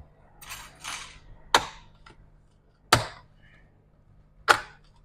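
Hard parts being handled and set down on a workbench: some rustling, then three sharp clacks about a second and a half apart.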